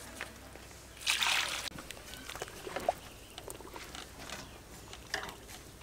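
Fish dropped into a large pot of hot water, a splash about a second in, then a few faint sloshes and drips.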